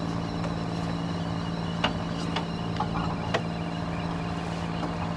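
Small fishing boat's engine idling with a steady hum, and a few short sharp clicks and knocks over it during the middle of the stretch.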